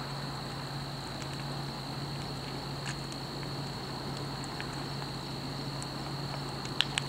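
Burning Ford F350 pickup truck crackling and popping from a distance, with scattered sharp pops and two loudest ones close together near the end, over a steady low hum and a steady high-pitched tone.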